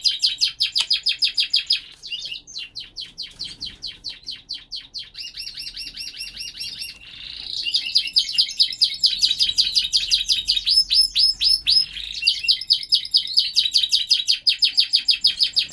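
Border canary singing a long, fast song of rapidly repeated high trilled notes. It turns softer a couple of seconds in and loud again from about eight seconds in.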